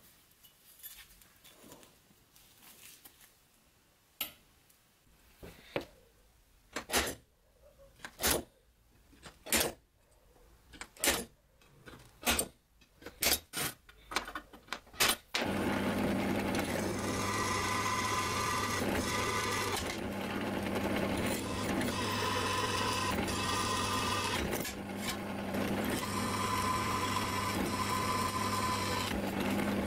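An automatic center punch snapping about a dozen times, faster toward the end, as it marks hole positions on a steel knife blank cut from an old saw blade. About halfway through, a drill press starts and runs steadily while a twist drill bores into the steel, with a cutting squeal that comes and goes.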